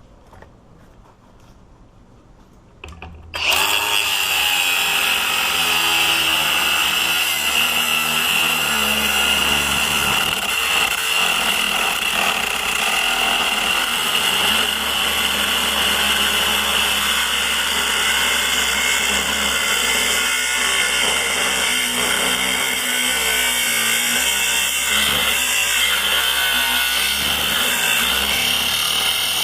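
A power tool starts about three seconds in and runs steadily with a high whine, cutting into a large laminated padlock clamped in a vise.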